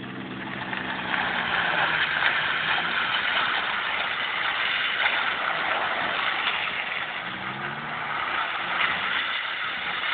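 Ford Laser driving past on a wet road, its engine revving up and easing off near the start and again about seven seconds in, over a steady hiss.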